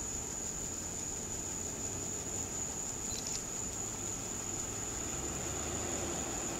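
Steady background hiss and low hum with a constant thin high-pitched whine, and a faint brief high flicker about three seconds in.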